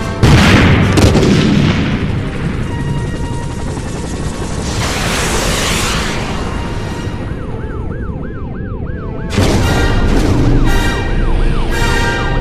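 Action-film sound effects: a sudden loud boom at the start and a rushing swell around the middle. Then comes a fast wailing siren-like alarm, about three rises a second, before louder music with impacts comes in near the end.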